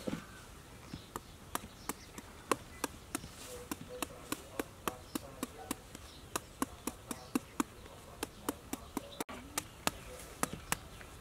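A cleaver chopping into a peeled green papaya held in the hand: quick, sharp chops, about three a second, some louder than others.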